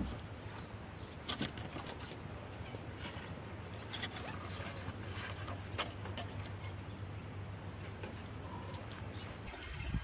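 A kitten's claws clicking and scratching on painted wooden boards as it climbs, in scattered sharp clicks over a steady low hum.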